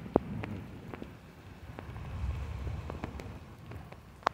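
Rain falling on a flooded asphalt lot, a steady hiss with scattered sharp drop clicks; two louder clicks, one just after the start and one near the end.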